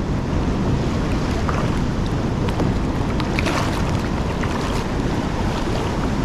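Steady rush of wind on the microphone over a choppy sea, with waves and foaming white water churning around the kayak.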